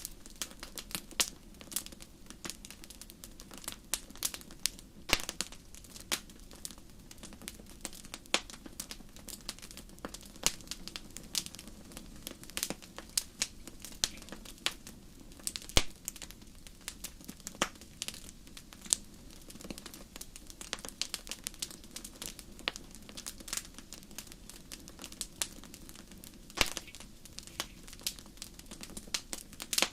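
Wood fire crackling in a fireplace: irregular sharp pops and snaps, several a second, over a steady low background.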